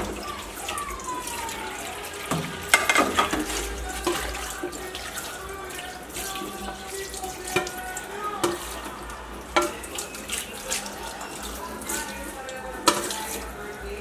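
Tap water running onto ceramic plates in a stainless-steel sink as they are rinsed by hand, with a few sharp clinks of the plates scattered through it.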